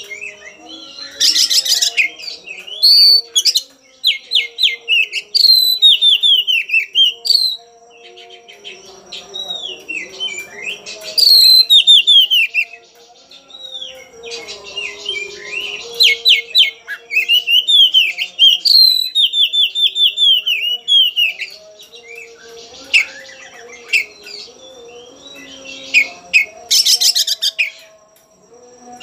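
Oriental magpie-robin (kacer) singing a loud, varied song: quick series of sweeping, falling whistled notes mixed with harsh chattering bursts, in phrases broken by short pauses. It is the agitated fighting song of a bird seeking a rival.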